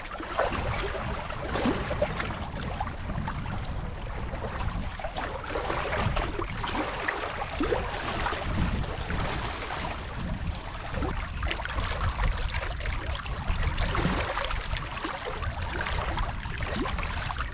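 Water lapping and splashing with a low, gusting wind rumble on the microphone.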